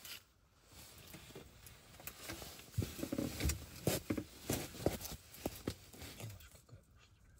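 A run of soft, irregular knocks and scuffs, about a dozen, starting nearly three seconds in and dying away a few seconds later.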